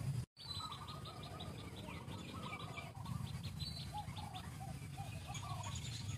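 Birds chirping in the background: quick runs of short high chirps and lower warbling calls over a steady low rumble of ambience, after a very brief cut-out in the sound just after the start.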